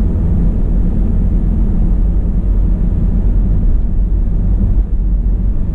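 Steady low rumble of a car driving along, engine and tyre noise, heard from inside the cabin.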